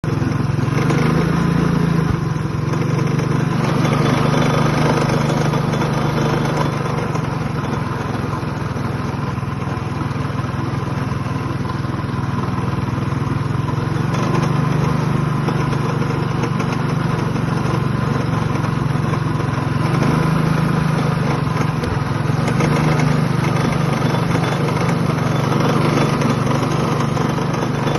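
Minibike's small engine running steadily, with the rattling noise that the bike is being checked for.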